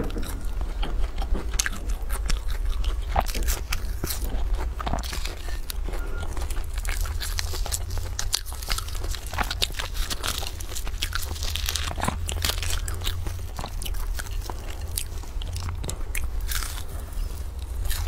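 Close-up biting and chewing of flaky puff pastry, with dense, irregular crunches and crackles. Around the middle there is crinkling as a pastry is peeled out of its aluminium foil cup. A steady low hum runs underneath.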